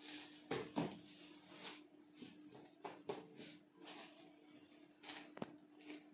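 Plastic wrap crinkling and rustling as hands press and smooth it over a plastic tub, in a string of short, irregular crackles.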